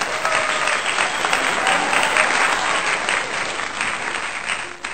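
Applause from a crowd, many hands clapping densely and steadily, laid in as a sound effect. It eases off a little near the end.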